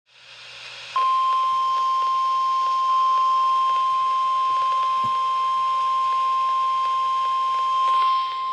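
NOAA Weather Radio warning alarm tone: one loud, steady, high tone over radio hiss, starting about a second in and holding. The tone marks the start of a warning broadcast.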